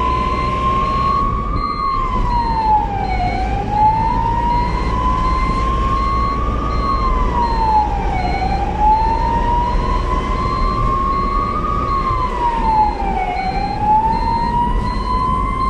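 Ambulance siren wailing: a tone that climbs slowly and then drops back quickly, about every five seconds, three times over, above a steady low vehicle rumble.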